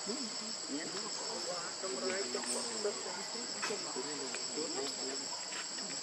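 A chorus of forest insects keeps up a steady, high-pitched drone.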